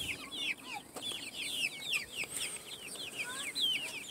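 A flock of young white Leghorn chickens peeping: a steady stream of short, high, falling peeps from several birds, overlapping each other.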